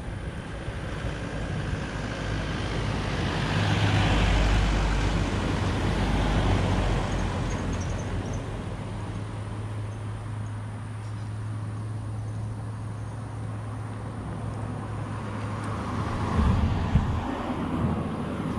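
Road traffic noise: a steady low rumble, with a vehicle passing about four seconds in and another swell near the end.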